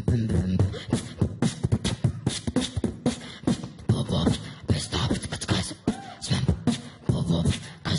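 A boy beatboxing into a handheld microphone: a fast run of drum-like kicks, snares and clicks made with the mouth, with hummed low bass tones woven between them.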